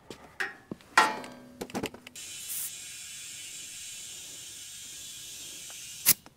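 Clatter and clicks as a portable air compressor's hose and chuck are handled and pressed onto a trailer tire's valve stem, then a steady hiss of air flowing into the badly underinflated tire for about four seconds, ending in a sharp click.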